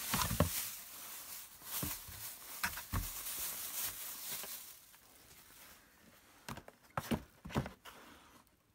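Cardboard shipping box being opened and rummaged through: rustling and scraping with scattered clicks for the first few seconds, then quieter, with a few sharp knocks near the end.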